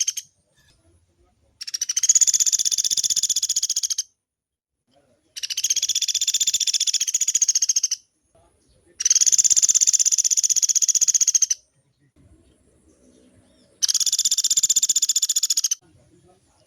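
Pelatuk beras woodpecker giving long, fast rattling trills, four in a row, each about two seconds long with short pauses between.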